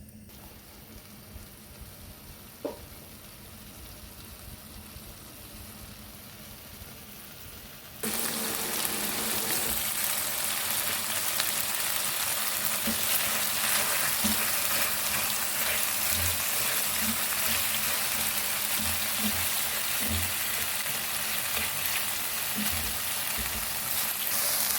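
Food sizzling in a frying pan. It starts suddenly about a third of the way in, after a quieter stretch, and carries on loudly with occasional low knocks from stirring.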